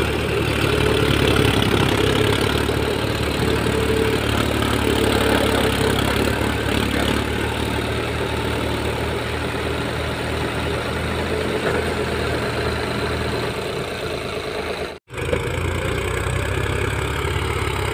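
Diesel farm tractor engines running steadily under heavy load, pulling a trolley piled high with sugarcane. The sound cuts out for an instant about fifteen seconds in.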